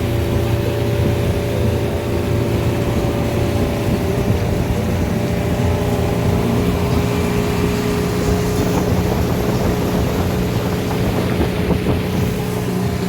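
Outboard engine of a Grizzly 580 motorboat running steadily under way, with wind and water noise; the engine note shifts slightly about halfway through.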